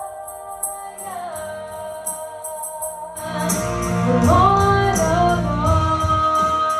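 Gospel worship music: a tambourine shaking in a steady beat over sustained keyboard chords, with singing. Bass and a fuller band come in about three seconds in.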